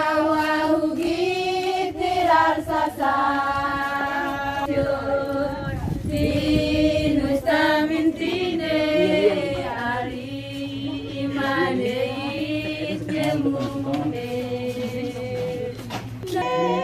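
A group of women singing together in unison, a slow song of long held notes.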